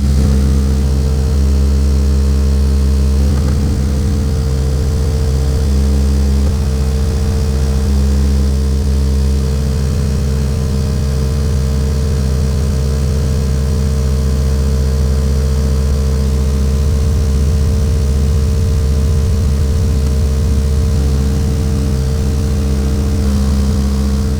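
Hyanka BSC-12 12-inch subwoofer playing a steady 40 Hz test tone at its 500-watt RMS rating, a loud continuous low hum with higher overtones above it. It is a true RMS endurance test of the sub.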